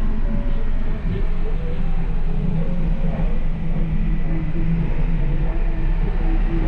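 Car audio subwoofers in a trunk playing music at high volume: a deep, steady bass rumble that swamps the rest of the song.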